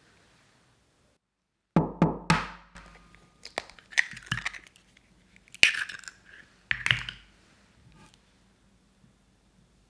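An egg is knocked sharply three times to crack its shell. The shell crackles as it is pulled apart over a ceramic egg separator, and two more sharp knocks follow.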